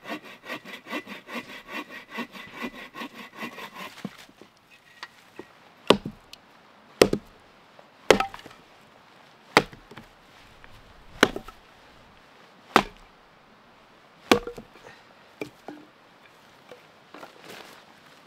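A hand saw cutting a dead branch in rapid, even back-and-forth strokes for about four seconds, then a hatchet splitting a short log into firewood with about seven sharp wooden strikes, a second or so apart.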